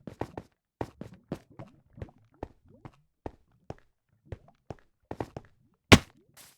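A string of sharp, irregular knocks and taps, about two to three a second, with one much louder knock near the end.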